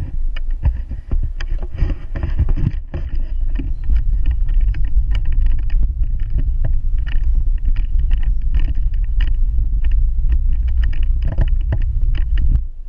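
Wind buffeting an action camera's microphone on a moving bicycle makes a loud, steady low rumble. Scattered clicks and rattles come from the camera and bike jolting over the road. The rumble drops off sharply just before the end.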